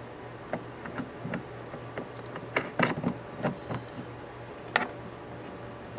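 Irregular small clicks and taps of hand-worked hardware as screw knobs are fitted and turned onto the threaded prongs of a massage chair's base panel, over a steady low hum.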